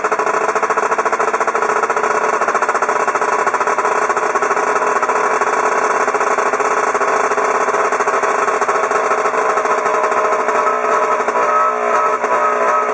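Older Johnson/Evinrude two-stroke outboard engine running steadily with its cowling off. The note wavers slightly near the end.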